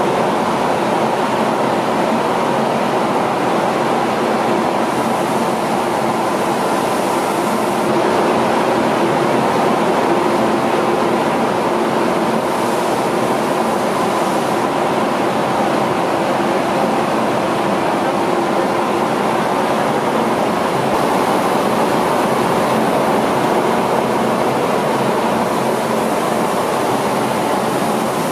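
Rice mill machinery running steadily, with rice grain streaming over belts and pouring through the chutes: a continuous, even machine noise with a rushing hiss.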